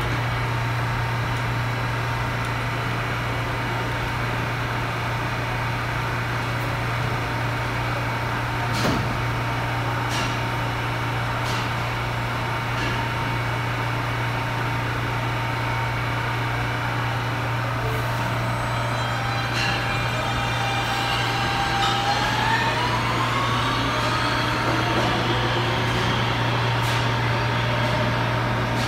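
A New York City subway train, an R160-series car, stands at the platform with a steady low hum, then pulls out. From about 20 s in, its traction motors give several rising whines over the rumble of the wheels.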